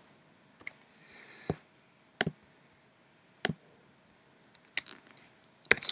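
About six separate, sharp clicks at irregular spacing, a second or so apart, from a computer mouse and keyboard during sketch work at the computer.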